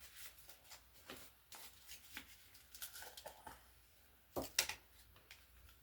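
Faint clicks and rustles from paint bottles and cups being handled, with a sharper pair of clicks about four and a half seconds in.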